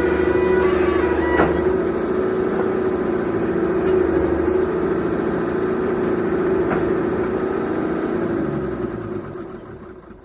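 Heavy diesel machinery engine running steadily, with two short knocks, fading out near the end.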